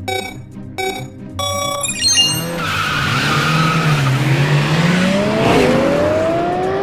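Race-start countdown: three short electronic beeps a little under a second apart, then about two seconds in a sound-effect burst of tyre screech and race car engines revving up as the cars launch.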